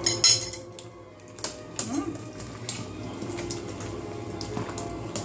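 Kitchen utensil clicking and tapping against a dish, with a louder clatter at the start, then scattered single clicks over a low steady hum.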